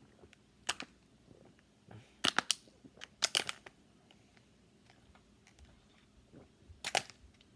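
Plastic water bottle crinkling in the hand: four short clusters of sharp crackles spread over several seconds, with quiet between them.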